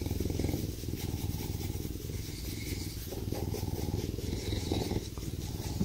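Bobcat purring steadily while its chin is scratched, a contented purr.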